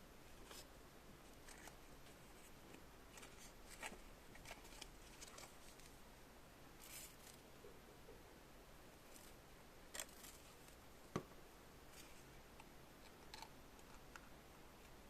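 Near silence with faint, irregular small clicks and taps, about a dozen of them, the sharpest one about eleven seconds in.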